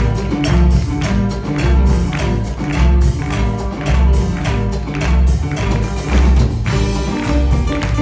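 Live Peruvian music played without singing: a deep beat lands about once a second, under sharp percussion strokes and sustained melody notes.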